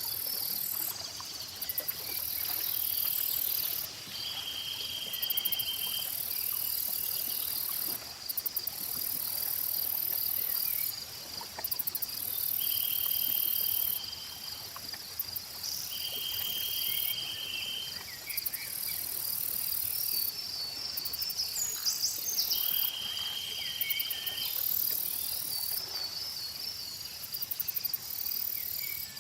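Chorus of insects: a steady high chirping, with a very high buzz that switches on and off every few seconds. A shorter buzzing trill of about a second repeats four times, and a few brief bird chirps come in around the middle.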